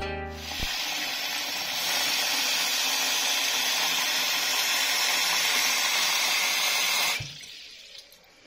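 Tap water running into a small plastic scoop held under the faucet in a sink, a steady splashing flow that grows louder about two seconds in. The tap is shut off about seven seconds in, leaving a faint dribble that fades away.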